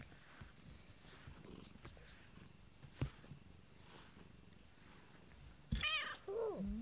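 Domestic cat purring steadily close to the microphone. Near the end a short, louder wavering vocal sound cuts in.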